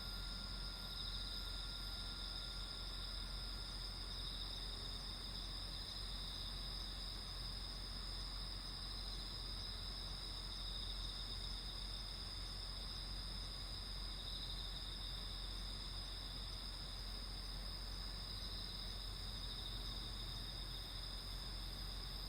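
Night insects singing in a steady, continuous high-pitched chorus, with one voice swelling and fading every few seconds.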